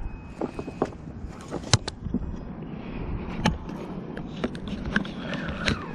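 Scattered sharp clicks and knocks, a dozen or so at irregular intervals, over a low wind rumble on the microphone.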